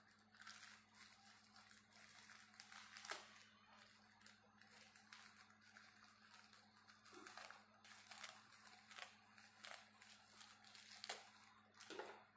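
Faint crinkling and rustling of a plastic courier mailer being handled and slit open with a knife, with a few sharper crackles, the loudest about three seconds in and again near the end.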